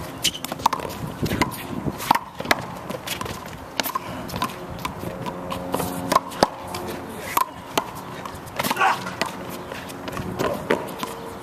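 Handball rally on a concrete court: irregular sharp smacks of the rubber ball being struck by hand, hitting the concrete wall and bouncing off the floor, with sneaker scuffs and steps between.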